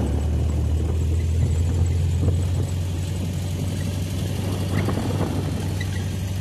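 Motor vehicle being driven: a steady low engine and road drone.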